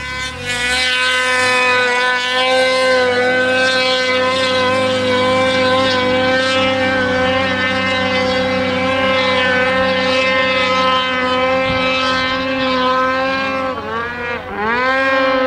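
Turbocharged two-stroke Polaris Dragon 800 snowmobile engine held at high revs as the sled climbs a steep chute, a loud, steady high-pitched drone. Near the end the revs dip and climb back twice.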